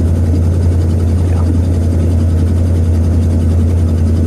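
Steady low drone of a 1966 Ford Thunderbird heard from inside the cabin while driving: engine and road noise at an even level.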